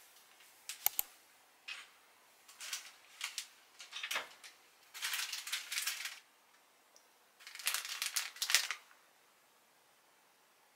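Hand-handling noises at a kitchen counter: a few light clicks and knocks, then several short bursts of rustling and crinkling, the loudest a little before the end.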